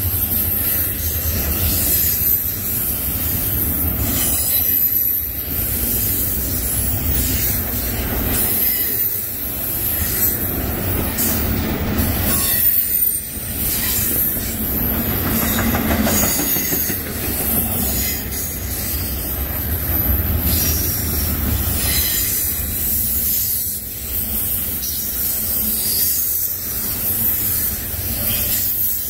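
Double-stack intermodal well cars rolling past: a steady rumble of steel wheels on the rails, with high-pitched wheel squeal over it.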